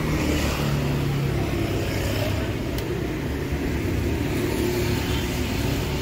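Motor vehicle traffic: an engine running steadily close by, over a continuous street noise.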